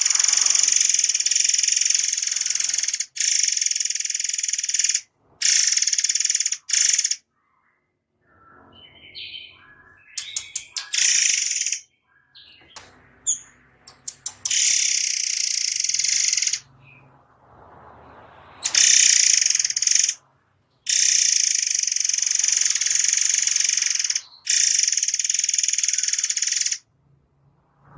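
White-rumped shama singing dense, rapid-fire high trills in bursts of one to three seconds, separated by short pauses with scattered softer chirps.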